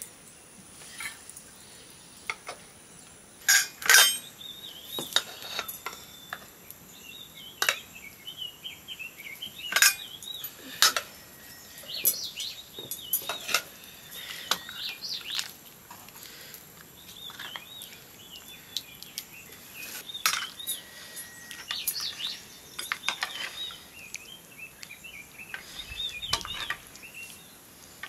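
Irregular clinks and knocks of dishes and utensils, a few of them sharp and loud, with small birds chirping steadily in the background.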